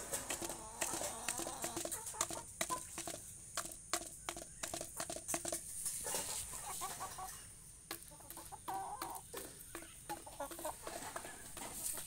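Chickens clucking in short low calls, mixed with quick sharp clicks of an aseel rooster's beak pecking grain from a plastic feeder tray.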